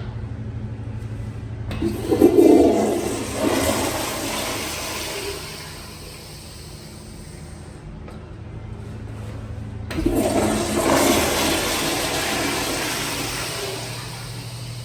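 Two commercial restroom flushes, each a sudden loud rush of water that fades away over a few seconds. The first starts about two seconds in and the second about ten seconds in, over a steady low hum.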